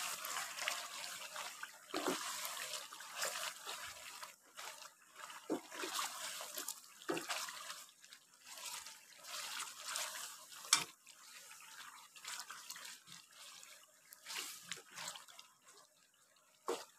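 Mutton pieces sizzling and bubbling in hot ghee in a karahi while a wooden spatula stirs and scrapes through them in irregular strokes, with a sharper click about eleven seconds in.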